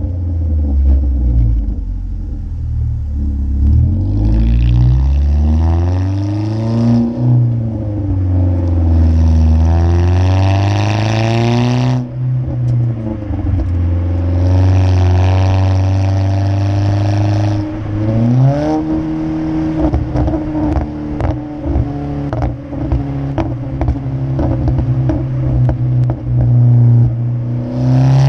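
2015 Ford Focus SE's 2.0 L four-cylinder, running with a muffler delete and an open K&N intake, revving up and dropping back repeatedly as the car is driven through the gears. In the latter part the exhaust crackles and pops in a quick string of sharp snaps over a steadier engine note.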